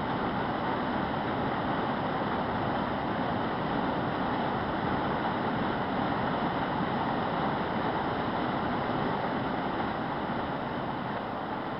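Steady rushing of creek water, an even unbroken noise.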